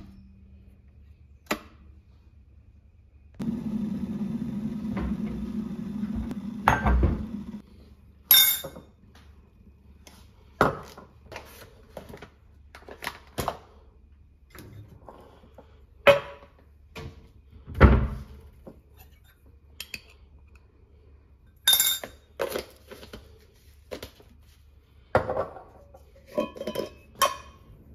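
Teaspoon, glass jar and ceramic mug clinking and knocking on a kitchen counter: a string of separate clinks and taps, several seconds apart at first and closer together near the end. A steady hum runs from about three to seven seconds in.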